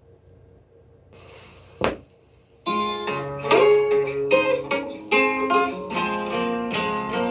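Faint record surface hiss with one sharp click about two seconds in. Then, a little later, a plucked acoustic guitar starts and plays on, heard from a 33 rpm lathe-cut clear Lexan disc.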